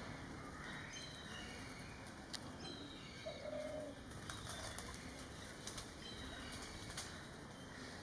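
Oriental magpie-robin bathing in a shallow clay bird bath, splashing and fluttering its wet wings in short bouts. Short high chirps of other birds come through now and then, and a short low call about three seconds in.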